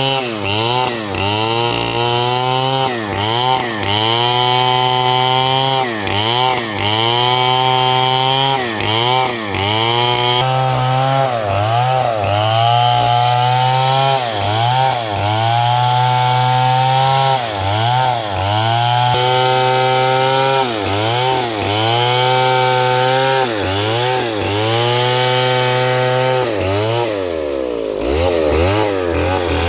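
Stihl chainsaw cutting small 6×6 cm wood, its engine pitch dipping under load with each cut and rising again every two seconds or so. Near the end it drops briefly toward idle, then revs up again.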